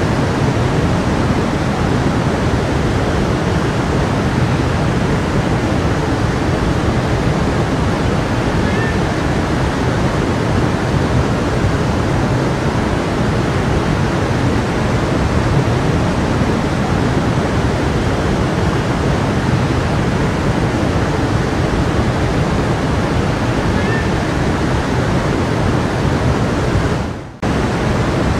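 Steady rushing of a flowing creek, an even water noise with a brief sharp drop in level near the end.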